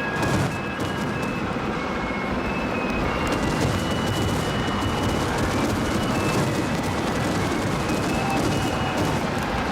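Fireworks going off in a dense, continuous run of bangs and crackling, with a stronger bang just after the start.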